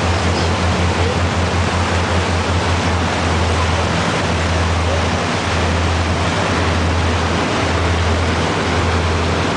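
A tour boat's engine running with a steady low drone under the loud rush of water churned up in its wake.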